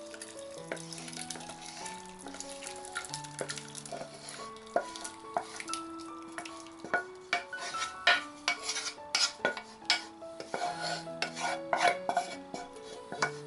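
Wooden spoon scraping and knocking against a pot as thick sauce and cooked vegetables are emptied into a metal mesh sieve, with many short scrapes and clicks that come faster and louder in the second half. Soft background music with held notes plays underneath.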